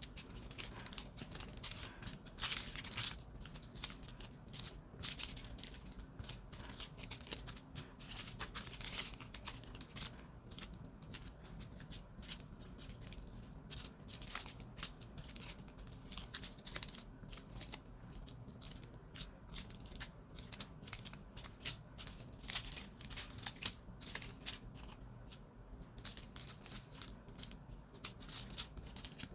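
Small plastic bags of diamond-painting drills being handled and sorted in sped-up footage: a fast, continuous run of plastic crinkling and rattly clicks of the tiny resin drills.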